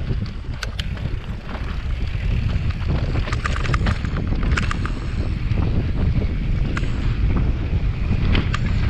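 Wind buffeting the on-board camera's microphone as a mountain bike rolls down a dirt singletrack, growing louder over the first few seconds, with tyre noise and many sharp rattles and clicks from the bike over rough ground.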